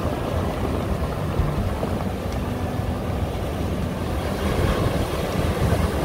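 Sea surf washing and breaking over rocks on a stony shore, with wind buffeting the microphone in a low rumble. A wave breaks against the rocks more loudly near the end.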